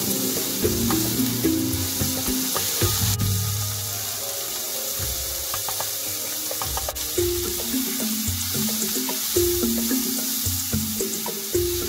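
Vegetables sizzling in hot oil in a nonstick frying pan, stirred now and then with a spatula, with a few light scrapes and clicks, under background music with a stepping melody.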